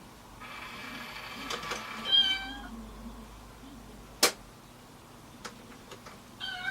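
Domestic cat meowing, one loud meow about two seconds in and a shorter one near the end, with a single sharp click between them.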